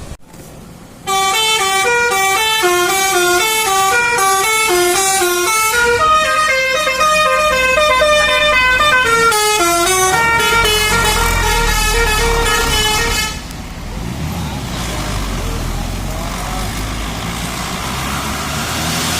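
Bus 'telolet' basuri horn playing a melody of stepped notes, each held briefly, for about twelve seconds, then cutting off about thirteen seconds in, leaving vehicle engine and road noise.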